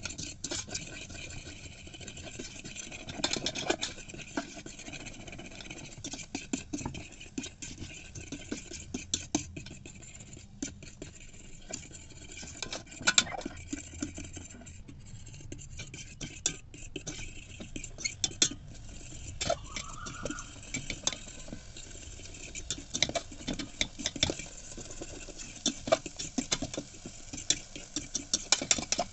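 A metal spoon scraping and clicking against the inside of an electric kettle in irregular strokes, stirring and scrambling eggs. About 20 seconds in there is a brief rising tone.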